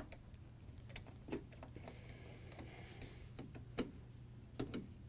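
Quarter-inch nut driver backing out the hex-head screws of a refrigerator water inlet valve bracket from the sheet-metal cabinet: faint scattered clicks and taps of metal on metal, with a soft scrape for about a second near the middle.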